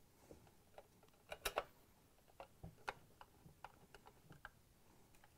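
Faint, irregular clicks and ticks of a Phillips screwdriver driving screws into a stand mixer's cover, with a sharper cluster of clicks about one and a half seconds in.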